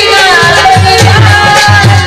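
Live Indian folk song: a voice singing a melody over a quick, steady hand-drum beat.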